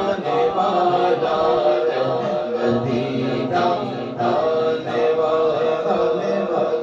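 Men singing a naat, an Urdu devotional hymn, into microphones, the melody carried in long held notes.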